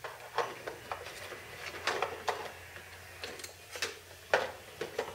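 Irregular clicks and taps of small hard parts being handled and fitted in the landing-gear door linkage of an RC jet model's wheel well, about a dozen sharp ones, over a faint steady low hum.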